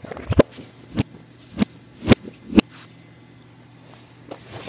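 Handling noise from a phone being moved about: a string of short knocks and scuffs roughly every half second, a pause of about a second and a half, then another near the end.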